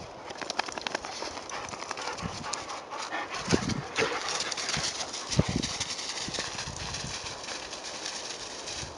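Footsteps crunching through thin snow and dry grass, with a few louder thumps about three and a half and five and a half seconds in.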